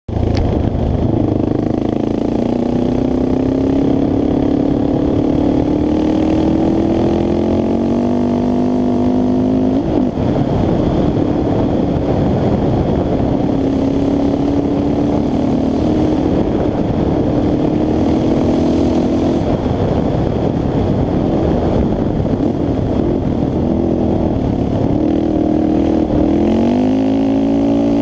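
Honda TRX700XX sport quad's single-cylinder engine, geared with a 16-tooth front sprocket, running hard under acceleration. Its pitch climbs, drops at an upshift about a third of the way in, climbs again, drops at another shift about two-thirds in, and rises once more near the end, with wind rushing over the microphone.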